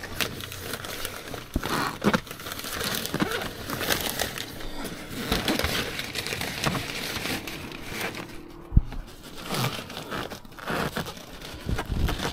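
Nylon fabric of a folded dog back-seat extender rustling and crinkling as it is handled and pushed into its nylon carry bag, with scattered light clicks and one sharper knock about nine seconds in.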